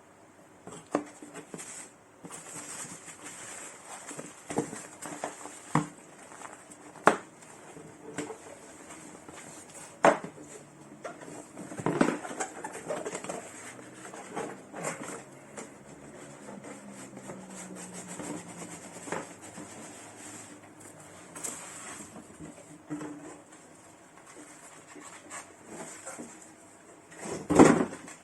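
Handling noises from unpacking an espresso machine: scattered knocks, taps and rustles of cardboard, paper and plastic parts being moved, with a louder knock near the end.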